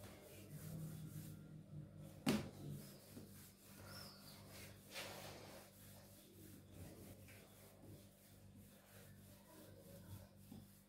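Faint soft rubbing of hands rolling sticky date paste into long ropes on a marble countertop, with one sharp tap a little over two seconds in.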